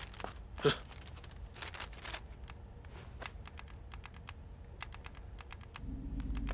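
Rapid, irregular clicking of keys being tapped, as at a radio operator's station, with faint short high beeps like Morse code tones repeating about three times a second in places. A brief louder swish comes about two-thirds of a second in.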